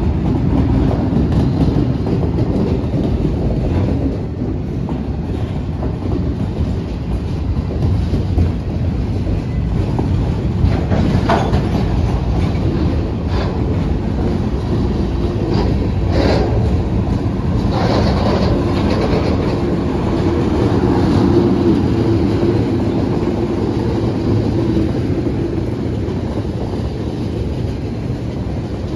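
Freight cars of a CSX mixed freight train rolling past, their wheels clattering steadily over the rail joints, with a few sharp knocks, about a third and a half of the way in.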